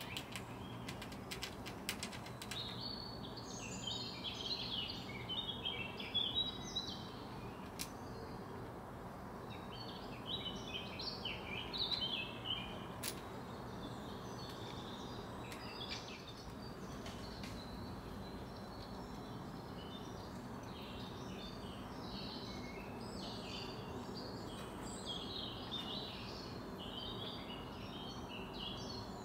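Small songbirds chirping and singing in many short calls over a steady low background hum, with a few sharp clicks in the first couple of seconds.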